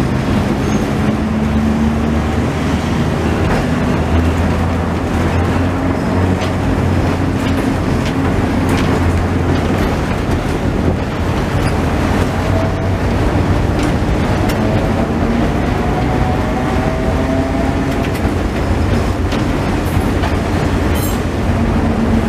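Vintage electric tramcar running on street track, heard from inside its wooden cab: a steady rumble with a whine that rises and falls in pitch, and scattered clicks and knocks from the running gear.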